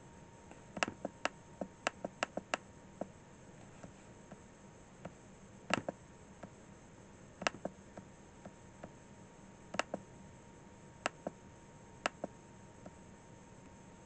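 Sharp, irregular clicks of a computer mouse: a quick run of about eight near the start, then single or paired clicks every second or so, over a faint steady electrical hum.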